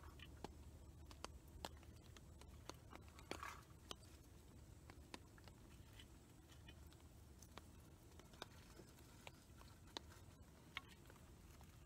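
Faint, scattered crackles and ticks from a small kindling fire of shavings and twigs as more twigs are fed in, with a brief rustle about three and a half seconds in. The fire is struggling to catch on wet, green wood.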